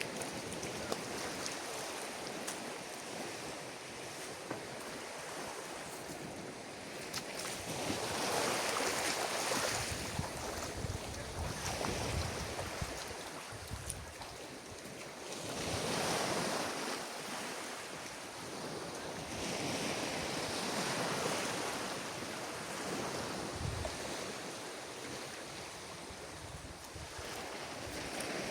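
Ocean surf on a beach: waves breaking and washing up the shore in a steady rush that swells every three to four seconds and then falls back.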